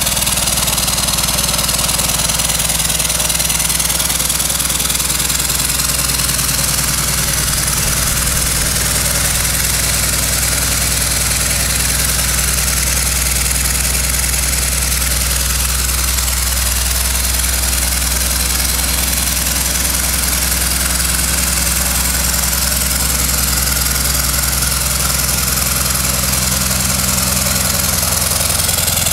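Home-built steam motorcycle engine running steadily on compressed air at about 6 atmospheres, with an even low hum and a hiss of air. It runs smoothly, its reworked valves and enlarged steam passages working well.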